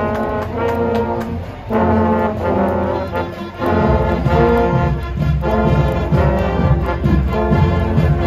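Marching band brass, a line of trombones with baritone horns, playing loud held chords; about four seconds in, heavier low notes and a steady beat join in.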